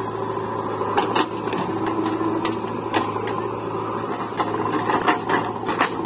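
JCB 3DX backhoe loader's diesel engine running steadily under hydraulic load while it loads mud. A handful of sharp knocks and clatters come from the bucket working.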